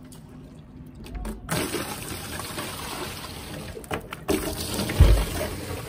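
Water sloshing and pouring from a bucket on a rope, hauled up from the sea and emptied over a yacht's deck to wash it down. It starts about one and a half seconds in, with a heavy thump about five seconds in.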